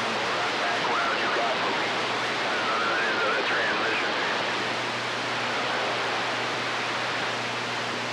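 CB radio receiver hissing with steady band static, with a weak, garbled voice from a distant station just showing through it about one to four seconds in. The distant signal has faded out under the noise, which the operators put down to changing skip conditions.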